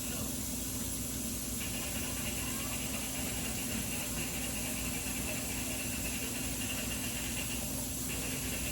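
A steady hiss with a low hum underneath and a higher hissing band that comes and goes.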